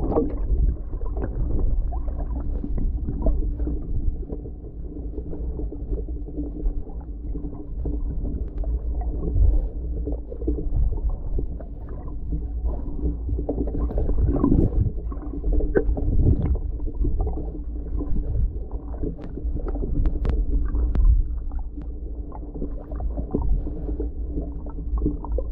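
Underwater sound picked up by a submerged camera: a muffled, steady low rumble of moving water, with scattered faint clicks and knocks.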